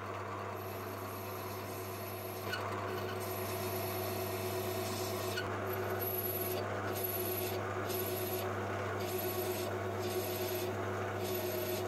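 Metal lathe running steadily with a motor hum while its parting blade scrapes shallow grooves into a spinning aluminium rod. The scraping cutting noise comes in a couple of seconds in and stops and starts in short breaks.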